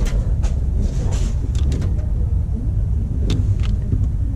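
Low steady hum of a smoke machine's air pump pushing smoke into the engine intake during a vacuum-leak smoke test, with a few light clicks and knocks from handling.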